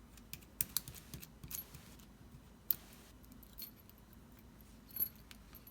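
Light metallic clicks and taps of a Bowley pin-tumbler lock being taken apart by hand as its actuator is removed: a cluster of small clicks in the first second or two, then a single sharp click near the middle and another near the end.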